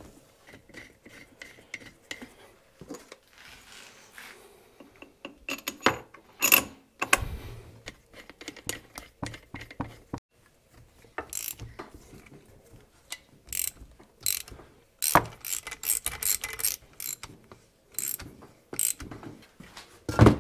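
Irregular metallic clicks and clinks as parts of a hydraulic excavator swing motor are handled and fitted by hand, in scattered clusters, with one heavy knock near the end as a wooden block is set down on the steel bench.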